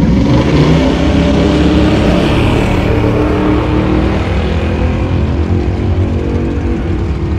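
Pickup truck's engine at full throttle off a drag strip start line, rising in pitch as it pulls away, then slowly fading as the truck goes down the track.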